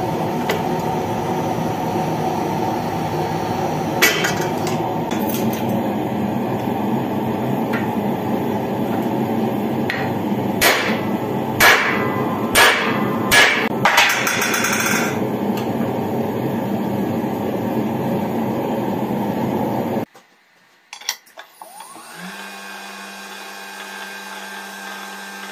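Sharp hammer blows on steel, a handful of separate strikes and then a quick clatter of ringing taps about midway, over a steady loud rushing noise. The noise cuts off suddenly about three-quarters of the way through, and a quieter steady machine hum follows.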